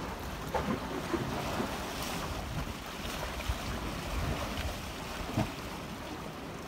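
Wind buffeting a phone's microphone over the wash of the sea along a rocky shore, an uneven rushing noise heaviest in the low end, with a light knock about five seconds in.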